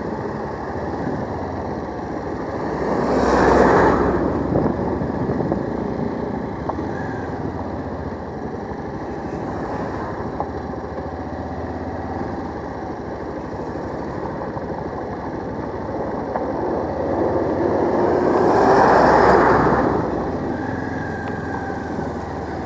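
Motorcycle running at road speed, heard from the rider's seat with wind noise. The sound swells louder twice: about three seconds in, and again from about seventeen to twenty seconds in.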